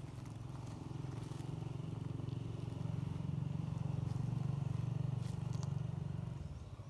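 A low engine drone, growing louder then fading away near the end.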